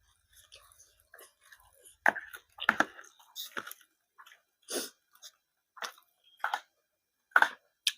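A person chewing a mouthful of food close to the microphone, with short wet smacks and clicks about once a second.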